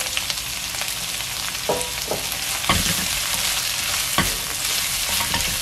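Rehydrated dried eggplant strips and sliced green chili peppers sizzling in oil in a hot nonstick wok, stirred with a wooden spatula that knocks against the pan a few times.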